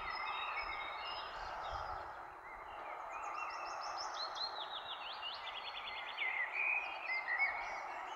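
Several birds singing outdoors, with short chirps and quick runs of repeated notes, over a steady background hiss.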